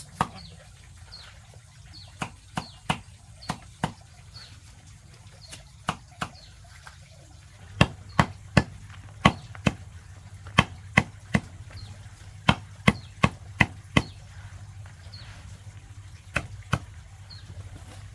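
Knife chopping banana plant stem into small pieces for chicken feed: sharp chops in irregular runs of about two to three a second, with pauses between runs.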